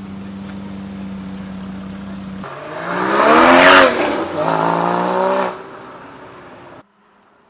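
Porsche Cayman GT4's flat-six engine idling steadily, then revved twice: a sharp blip that rises and falls, followed by a second rev held briefly before it drops back. The sound cuts off suddenly near the end.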